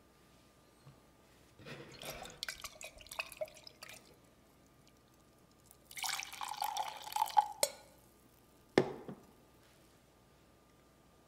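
Brewed coffee poured from a glass server into a ceramic mug, a short splashing stream. It comes after a few seconds of clinks and taps as the glass and ceramic are handled, and is followed by a single knock as the glass server is set down on a wooden tray.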